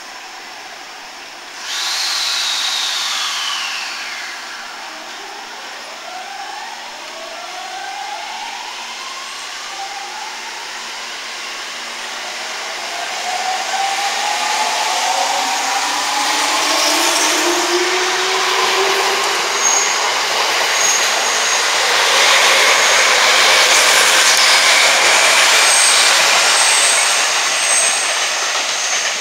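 JR Musashino Line electric commuter train pulling out of the platform. A sudden falling whine comes about two seconds in. Then the motors whine in a series of rising pitches as the train gathers speed, and it grows louder with wheel and rail noise as the cars run past.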